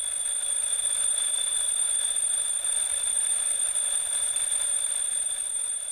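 Seiko QXK118KLH battery-powered twin bell alarm clock ringing its alarm: the hammer rattles rapidly on the two bells in one loud, steady, unbroken ring.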